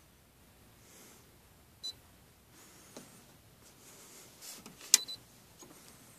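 Two short high beeps from a Brother PR600-series embroidery machine's touch panel, about three seconds apart, each with a click, the second click sharper and louder, amid light handling noise.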